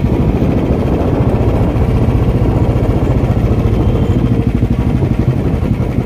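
Motorcycle engine running as it is ridden, with a fast, even low-pitched pulsing.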